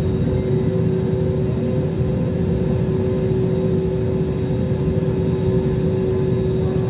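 Jet airliner's engines heard from inside the cabin over the wing while the plane taxis: a steady low rumble with a steady hum over it.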